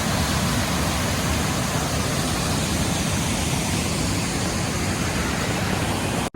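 Steady, even rushing of falling water from a waterfall, with no breaks or changes.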